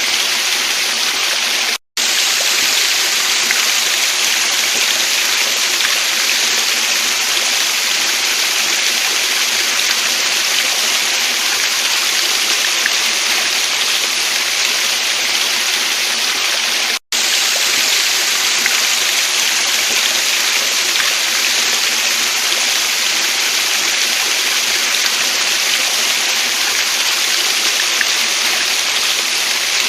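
Waterfall and stream water rushing in a steady, loud hiss. It cuts out for an instant twice, about two seconds in and again a little past halfway.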